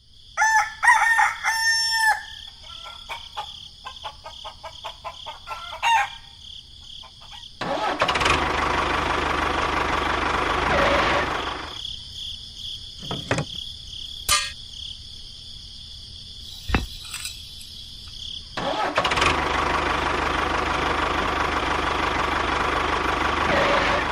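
A rooster crows about a second in, followed by scattered clicks. Then, twice, a loud steady machine noise runs for about four and five seconds and stops.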